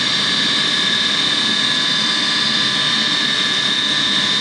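Industrial machine running steadily: an even rushing noise with several steady high-pitched whines on top, with no change over the few seconds.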